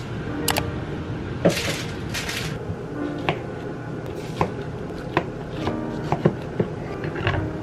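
Kitchen knife slicing strawberries on a plastic cutting board: a run of short, sharp taps as the blade meets the board, spaced irregularly, coming quicker toward the end.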